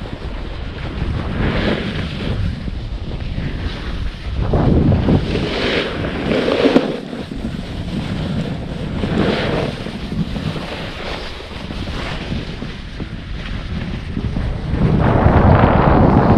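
Wind rushing over the microphone while a snowboard slides downhill, its edge scraping over chopped-up snow in swells every few seconds as it turns, the biggest near the end.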